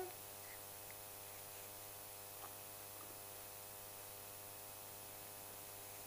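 Quiet room tone: a faint steady electrical hum and hiss, with a couple of tiny ticks partway through.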